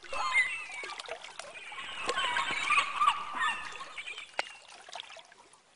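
Water sound effect of splashing and bubbling, full of small clicks and short chirping squeaks. It swells to its loudest a few seconds in, then fades.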